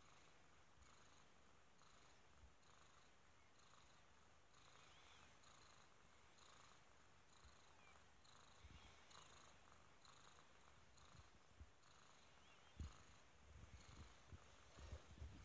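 Kitten purring faintly and steadily, the purr swelling and easing about once a second with each breath. A few soft low knocks come near the end.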